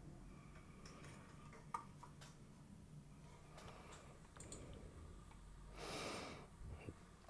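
Near silence: faint room tone with a few soft computer mouse clicks in the first half, and one short breath near the microphone about six seconds in.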